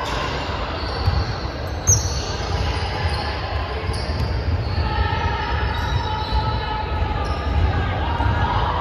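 Basketball game on a hardwood gym floor: sneakers squeaking sharply now and then and the ball bouncing as it is dribbled, over a steady low rumble in the big hall.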